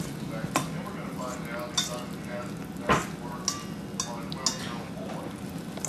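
Wire whisk beating pancake batter in a stainless steel bowl: irregular clinks of the wires against the metal side, with one louder knock about three seconds in, over a steady low hum.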